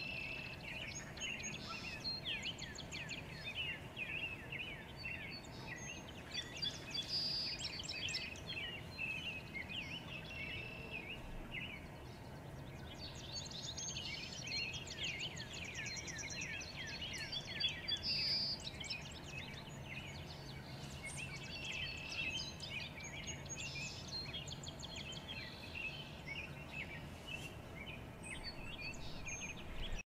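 Several forest songbirds singing and calling at once, with overlapping quick chirps, rapid downward-swept note series and short trills, heaviest in the first ten seconds and again in the middle. A faint low steady rumble runs underneath.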